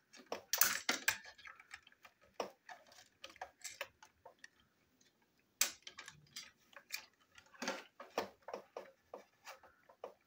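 Irregular plastic clicks and taps from a toy Thomas the Tank Engine train engine being handled, its plastic body pressed and fitted together by hand. The louder clicks come in small clusters, about half a second in, near six seconds in and around eight seconds in.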